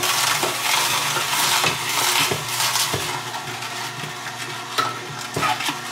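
Electric juicer running, its motor humming steadily while fruit and vegetables are pushed down the chute and ground up, with a dense crackling and a few crunching knocks.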